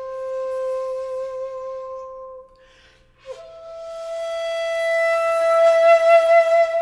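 Slow solo flute music: a long held note fades into a short pause with an audible breath, then a higher note swells and is held, dropping back to the lower note near the end.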